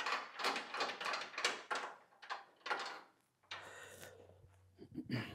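Steel bracket knocking and scraping against a steel frame rail as it is fitted by hand: a run of quick metal knocks, about three a second, for the first three seconds. A low steady hum follows for about a second and a half, then a single thump near the end.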